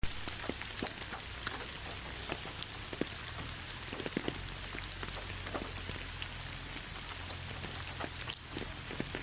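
Rain falling on a bed of fallen autumn leaves: a steady patter, with many individual drops ticking sharply on the leaves.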